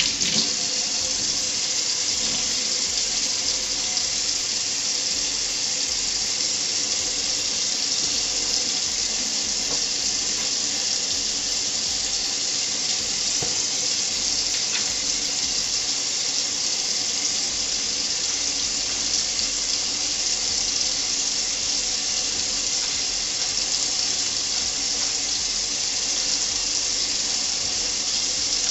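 Kitchen faucet running steadily, its stream splashing into a stainless steel sink and through wet hair being rinsed and shampooed under it.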